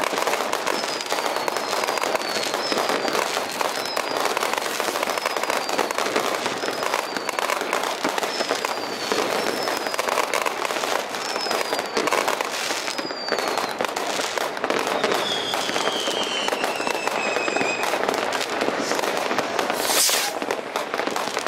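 Many fireworks going off at once: continuous crackling and banging of rockets and firecrackers, cut through by short falling whistles about once a second. A longer descending whistle runs for a few seconds about two-thirds of the way in, and a sharp bang comes near the end.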